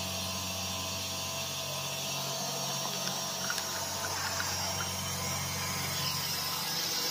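Five-axis CNC router's spindle running as its bit carves a white foam block turning on the rotary axis: a steady machine hum and whine with an even high hiss.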